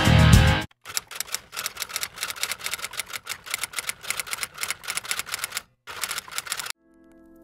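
Rock guitar music cuts off within the first second, then a typewriter sound effect: rapid, irregular key clacks for about six seconds with a brief break near the end, and soft music starts faintly at the very end.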